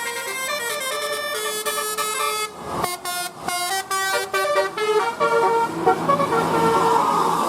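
Bus telolet horn playing a quick melody: a multi-tone air horn stepping rapidly from note to note. It breaks off briefly about two and a half seconds in, then more notes come over a rising noisy rush toward the end.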